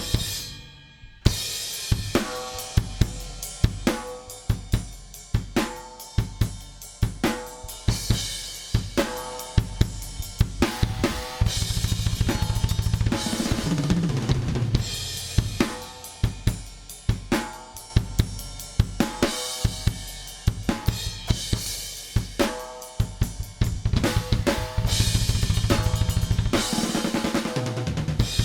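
Recorded drum kit playing a steady groove: kick, snare, hi-hats and cymbals, with a bass line underneath, played back as a demonstration of the FMR Audio RNLA compressor on drums. Playback cuts out briefly about half a second in and restarts with a hard hit.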